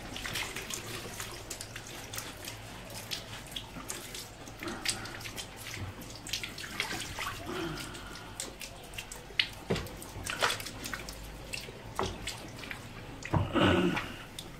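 Liquid pouring and splashing onto a tiled floor as the acid is tipped out of a lead-acid battery through its filler holes, with scattered drips and knocks and a louder knock near the end.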